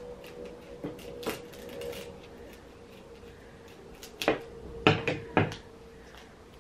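Scissors snipping through paper covered in clear laminating tape: a couple of light snips, then three sharp, loud clicks about half a second apart a little after four seconds in.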